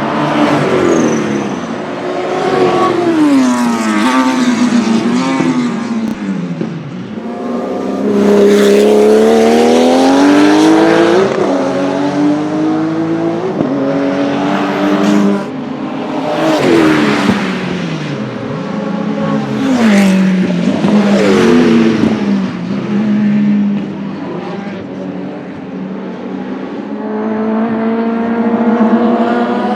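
1979 Porsche 935 Kremer K3's twin-turbo 3.2-litre flat-six race car engine being driven hard on track, its pitch climbing and dropping several times, with several short sharp bursts.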